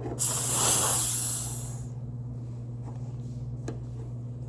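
Aerosol shaving cream can sprayed in one hissing burst of about a second and a half. The can gives out mostly air, as with dried-up shaving cream.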